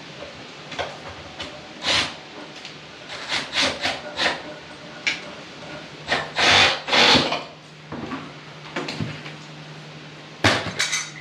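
Hand tools at work on PVC vent pipe: a string of sharp knocks and clicks, with two longer rasping strokes about six to seven seconds in, over a steady low hum.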